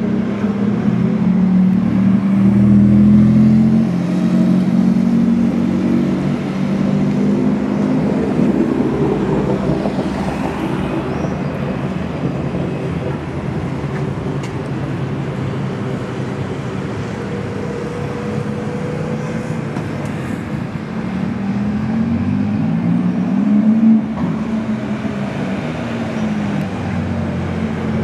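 Porsche 991 GT2 RS's twin-turbocharged flat-six engine, tuned to 850 hp, running at low revs as the car rolls slowly past. It is loudest in the first four seconds. Street traffic noise follows, and about three-quarters of the way through an engine's pitch rises for about two seconds and then drops back, peaking in a brief loud burst.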